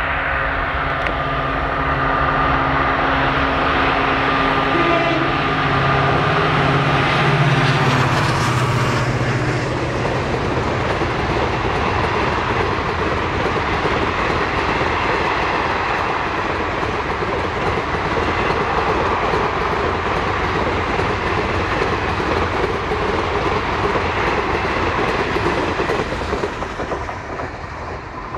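EMD WDP4-series diesel locomotive passing at speed with a passenger train: its two-stroke diesel engine drones loudly as it comes by, loudest about eight seconds in. Then the coaches rush past with a steady rumble and clatter of wheels on the rails, which fades near the end.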